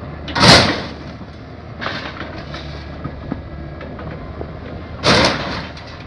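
Scrapyard grapple machine running with a steady low rumble, with two loud crashes of scrap metal, about half a second in and about five seconds in, and a few lighter metal knocks between them.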